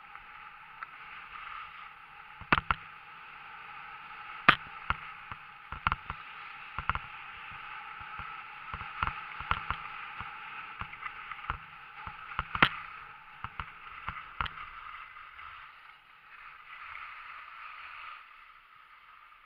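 Skis sliding and scraping over packed snow on a downhill run, with sharp clicks and knocks scattered through the middle; the scraping eases off near the end.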